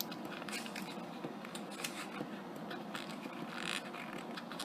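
Metal tweezers scratching and ticking against a paper sticker on a planner page, trying to lift off a misplaced sticker. The sound is light, irregular scratches and ticks, with a brief longer scrape about three and a half seconds in.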